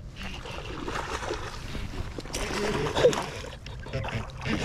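Water splashing and sloshing as a hooked largemouth bass thrashes at the surface while being fought in to the bank, with one sharp splash about three seconds in.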